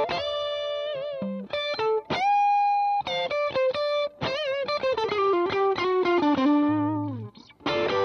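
Electric guitar played through a Demonfx Breaker Drive, a Marshall Blues Breaker-clone overdrive pedal, switched on. It plays single-note lead lines with held, bent notes and vibrato. Near the end a note slides down and the playing pauses briefly before picking up again.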